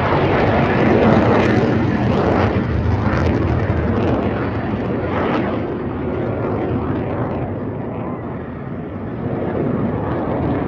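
Jet noise from a Blue Angels F/A-18 Super Hornet flying past. It is loudest in the first few seconds, dies down through the middle, then swells again near the end as more jet noise comes in.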